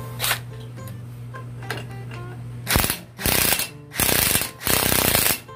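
Cordless impact wrench hammering in short bursts, a brief one just after the start and then four in the last three seconds, as it runs a lug nut down to pull a new wheel stud into the rear axle hub. Background music plays underneath.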